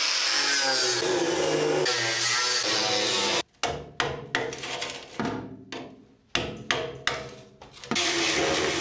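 Background music: sustained notes, broken from about three and a half seconds in to about eight seconds by a run of sharp, quickly fading strikes before the held notes return.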